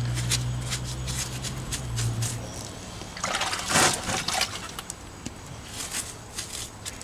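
A wet sponge is sloshed and wrung in a bucket of water about halfway through, splashing and trickling. Around it are short scratchy strokes of the sponge wiping fresh mortar joints on stone. A low steady hum fades out about two seconds in.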